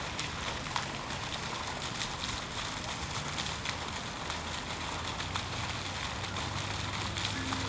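Steady outdoor background noise in a park: a low rumble under a steady high hiss, with a few faint ticks.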